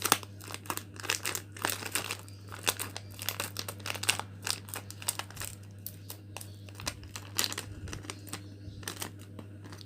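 Plastic coffee sachet wrappers crinkling and crackling as they are handled and cut with shears, a dense run of irregular sharp crackles.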